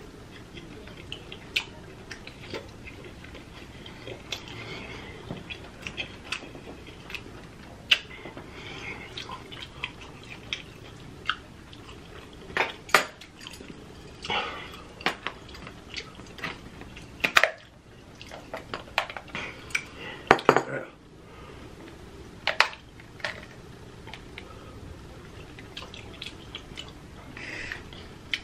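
Eating sounds of a seafood boil: lobster claw shells cracked open with a metal tool, giving a scatter of sharp clicks and cracks, the loudest about two thirds of the way in, with wet smacking of buttery sauce and chewing between them.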